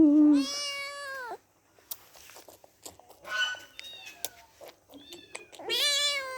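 Kittens meowing several times: a long meow in the first second, a few shorter, fainter meows around the middle, and another loud meow near the end.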